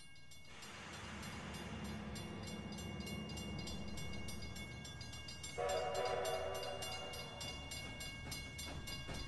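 Recorded steam train sound effects: a hissing rumble of steam that grows steadily louder, with a train whistle blown once about six seconds in, lasting about a second and a half.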